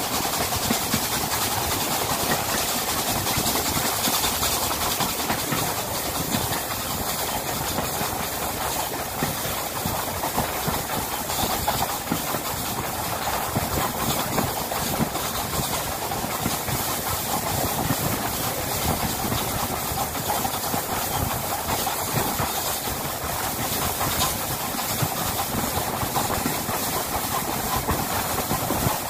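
Steady rush of air and running noise from a steam-hauled train at speed, heard through an open carriage window, with the USATC S160 2-8-0 steam locomotive working at the head of the train.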